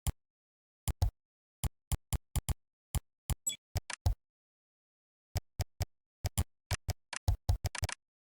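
Typing on a computer keyboard: single keystrokes at an uneven pace, a pause of about a second midway, then a quick run of keystrokes near the end.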